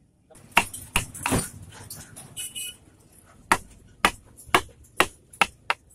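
Hammer blows on a chisel cutting into a wooden charpoy leg: a few knocks in the first second and a half, then a run of six sharp strikes at about two a second in the second half. A short high squeal comes in between.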